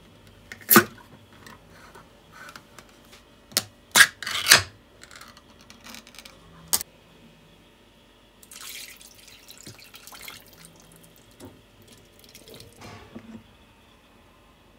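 A series of sharp knocks and clatters, the loudest a quick cluster about four seconds in, followed about halfway through by roughly two seconds of hissing noise.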